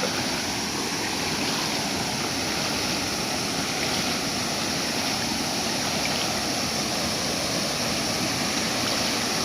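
Shallow hill stream rushing steadily over rounded stones, a constant, even rush of water.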